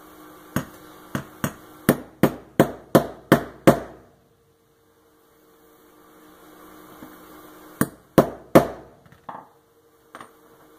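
Hammer striking a snap-setting punch on a small anvil to roll over the stud of a leather snap: a run of about nine sharp blows coming faster, then a pause, then three more blows near the end.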